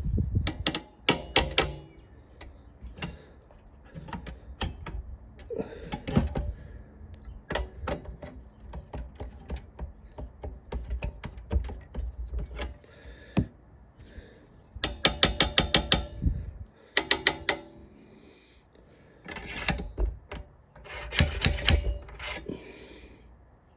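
Hand ratchet wrench clicking in several short bursts of rapid clicks, with handling knocks in between, as a fitting is tightened down to seal.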